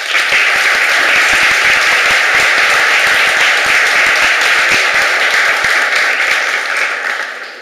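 Audience applauding, a dense run of clapping that dies away near the end.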